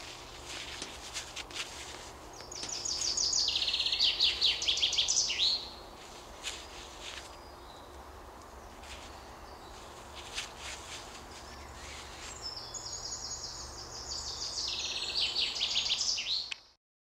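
A songbird sings twice. Each song is about three seconds of quick repeated notes that step down in pitch and end in a short flourish, over faint rustling and handling clicks.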